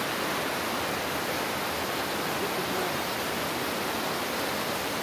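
River water rushing over boulders in white-water rapids, a steady noise without a break.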